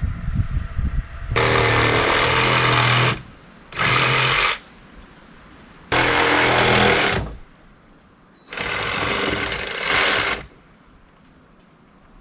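A power tool running in four bursts of one to two seconds each, with short pauses between them.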